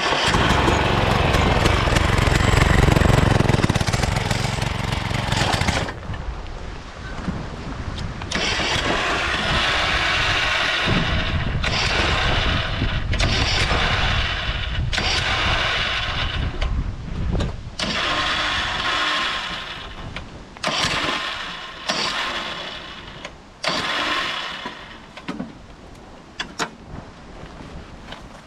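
Small petrol engine of a home-built lawnmower race mower being driven: it runs hard for the first few seconds, then surges in a string of throttle bursts that get shorter and fainter toward the end.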